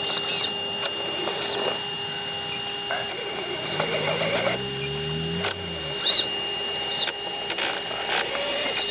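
RC rock crawler's electric motor and geared drivetrain whining steadily as the truck crawls slowly up rock, with scattered clicks and scrapes from the tyres and chassis on the stone. About halfway through, a lower drone rises in pitch for a couple of seconds.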